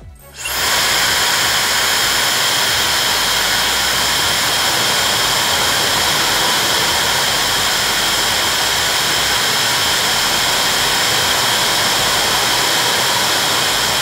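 Laifen Swift brushless high-speed hair dryer switching on about half a second in with a quick rising whine, then blowing steadily: a rush of air with a high, even motor whine.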